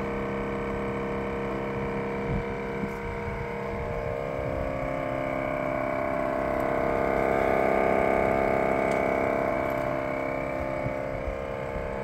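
Premium Levella mini split outdoor unit's compressor running with a loud humming drone of many steady tones, swelling louder about halfway through and then easing off. This is the sound of a compressor about to fail.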